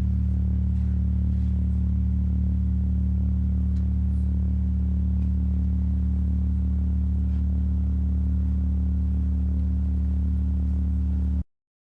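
Steady low drone from the band's amplifiers, a stack of deep unchanging tones left ringing after the song ends, which cuts off abruptly near the end.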